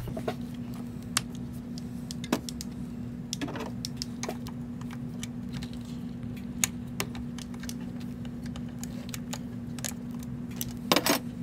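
Scattered light metallic clicks and taps of a hand wrench on the fuel filter housing's banjo fittings and mounting bolts as they are undone, with a quick cluster of louder clicks near the end, over a steady low hum.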